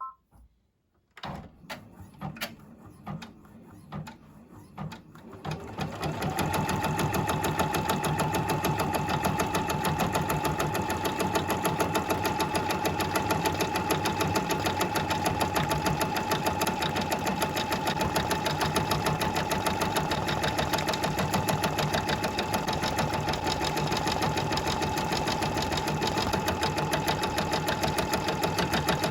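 Brother VR embroidery machine starting to stitch: a few slow, separate needle strokes that come quicker, then about six seconds in it settles into steady, rapid full-speed stitching with a constant hum.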